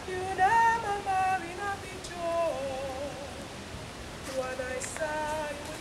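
A woman singing unaccompanied: a slow melody of long held notes that slide and waver, phrase by phrase with short breaks between.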